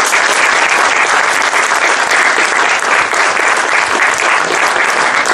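Audience applauding loudly, a dense steady patter of many hands clapping.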